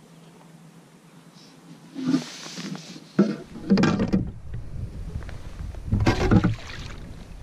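Several short bursts of rustling and bumping close to the microphone, about two seconds in, at three, at four and at six seconds, with a low wind rumble on the microphone from about halfway.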